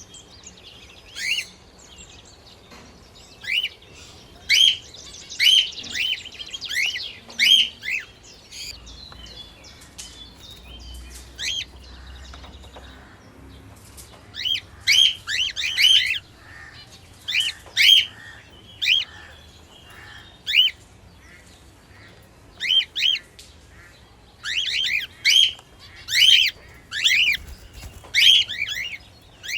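Small pet parrots chirping: short, sharp chirps repeated in quick bouts, with a quieter stretch of several seconds about a third of the way in.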